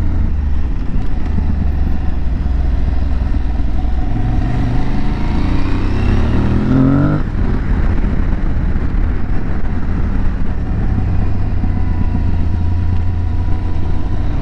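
Aprilia Tuareg 660's parallel-twin engine running as the motorcycle is ridden. About four seconds in, the revs climb steadily for about three seconds under acceleration, then drop suddenly, and the engine runs on steadily.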